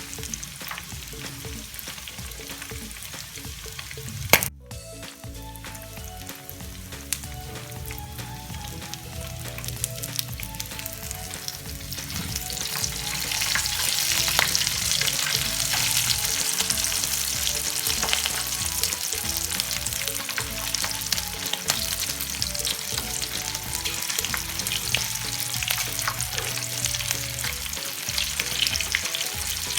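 Pork intestines deep-frying in hot oil: steady sizzling and crackling that grows louder about twelve seconds in, with one sharp click about four seconds in. Faint background music plays underneath.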